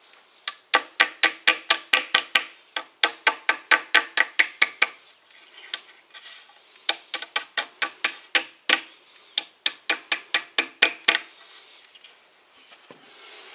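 Rubber mallet tapping wooden dowels into the edge of a particleboard shelf panel: two quick runs of taps, about four or five a second, with a pause of a second or two between, each tap with a short ring from the panel.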